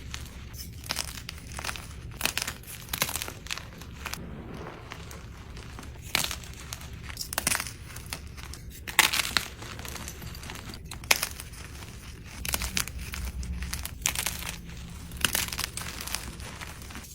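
Dyed gym chalk being crushed: a run of irregular dry, crisp crunches and crumbles, with a few sharper cracks about nine and eleven seconds in.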